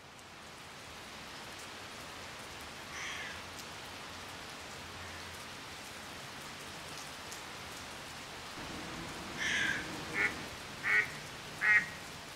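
Steady rain falling on water and wet ground, with ducks quacking: one call about three seconds in, then four in quick succession near the end, the last the loudest.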